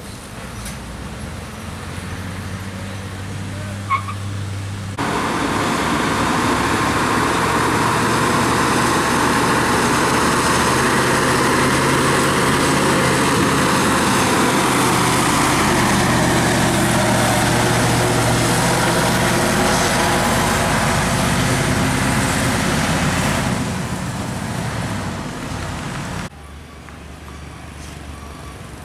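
Heavy diesel truck engines working up a steep bend. About five seconds in, the sound jumps abruptly louder as a loaded Mitsubishi Fuso Super Great's diesel engine pulls close by, then tapers off. It drops suddenly near the end to a quieter diesel engine as a Nissan Diesel truck approaches.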